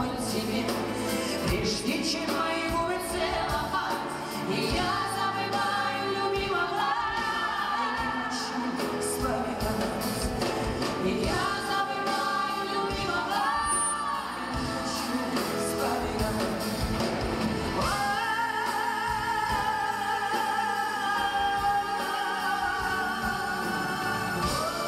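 A woman singing a slow song live, with keyboard accompaniment through the hall's sound system, holding long notes in the second half.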